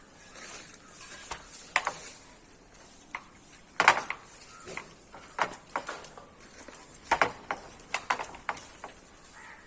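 A hand tool scraping and clinking against a hard surface in about a dozen irregular sharp strokes, the loudest about four seconds in, as in working cementitious crack-sealing compound.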